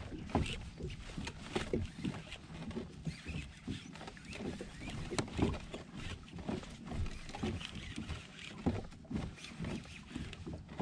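Water splashing and lapping against a moving kayak's hull in a quick, irregular run of small splashes and knocks.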